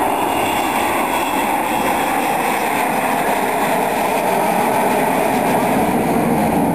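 Avro Vulcan bomber flying overhead, its four Olympus turbojets giving a loud, steady jet noise.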